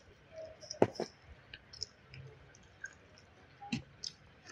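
Eating sounds close to the microphone: a few sharp mouth clicks and smacks, two about a second in and one near the end, with faint ticks between.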